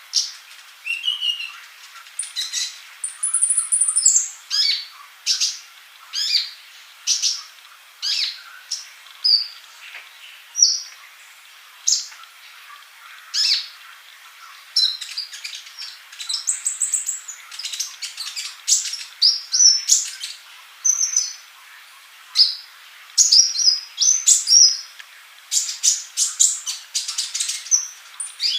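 Male kolibri ninja (a sunbird) singing in full voice: a long run of rapid, high, thin chirps and trills broken by short pauses, with a few sharper high whistles, as used for a masteran to teach young birds.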